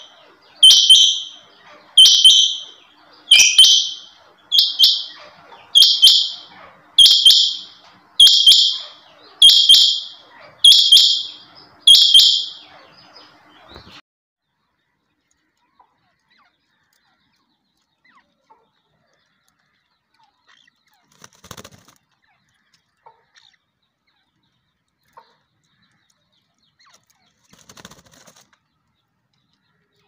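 Rain quail (chinga) calling: a loud, high-pitched call repeated about once every 1.2 seconds, around eleven times, stopping about twelve seconds in. After that it is near silence, with a few faint clicks.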